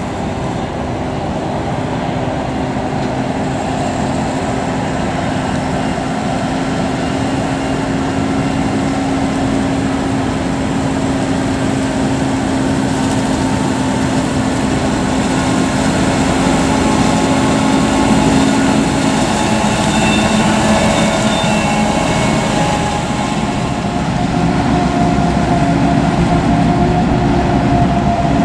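Krone Big X 700 forage harvester chopping maize, its engine and chopper running at full work with a steady droning hum, mixed with a Fendt tractor pulling a silage trailer alongside. The noise grows slightly louder as the machines come nearer.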